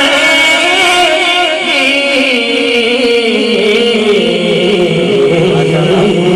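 A man singing Sufi kalam without words: one long, drawn-out melismatic phrase that slides slowly down in pitch.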